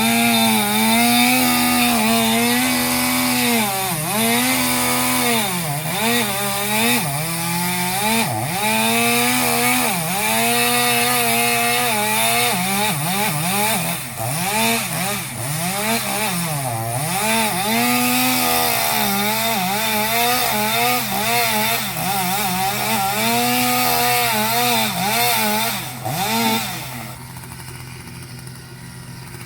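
Chainsaw running at high revs while cutting wood, its pitch dipping sharply again and again as the chain takes the load, then climbing back. It stops near the end.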